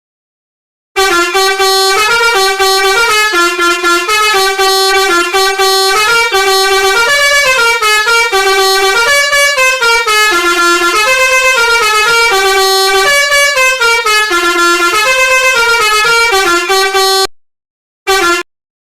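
Basuri telolet musical bus horn playing a melody of short held notes that step up and down, starting about a second in and stopping shortly before the end, then two brief blasts.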